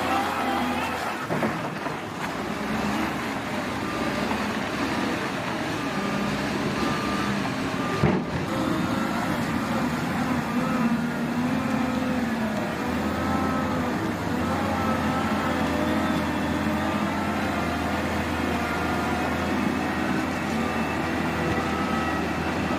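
Heavy vehicle engine running steadily, its pitch wavering up and down, with one sharp clank about eight seconds in.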